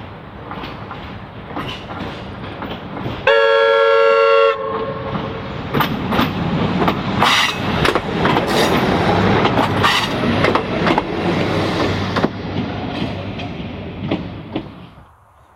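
Tulloch-built DRC diesel railcar approaching, sounding one horn blast about a second long a few seconds in, then passing close by with its wheels clicking over the rail joints, the sound fading as it runs away near the end.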